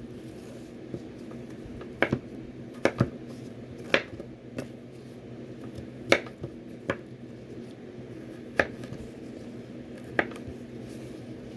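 Knife cutting vegetables on a cutting board: about nine sharp, irregular chops, one every second or so, over a steady low hum.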